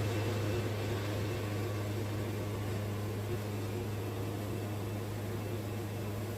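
Wood-Mizer portable band sawmill running with a steady low hum as it saws a black walnut log.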